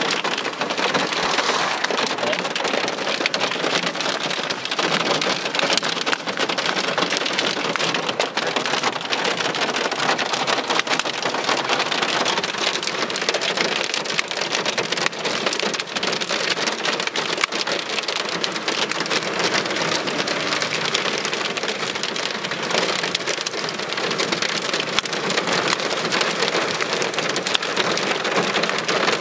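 Heavy rain pouring down in a dense, steady patter of drops.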